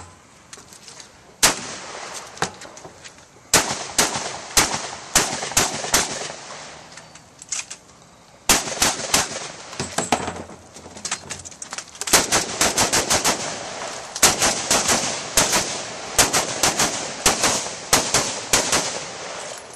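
Competition gunfire: one shot about a second and a half in, then strings of rapid shots broken by short pauses, with the fastest and longest strings in the second half.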